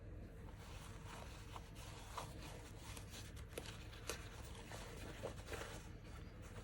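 Denim fabric being handled during a repair: a faint, uneven rustling and scratching, with a few light ticks.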